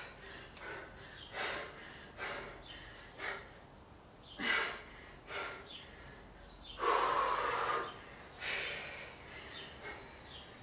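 A woman breathing hard with exertion while lifting dumbbells: short, audible breaths about once a second, with one longer, louder breath about seven seconds in.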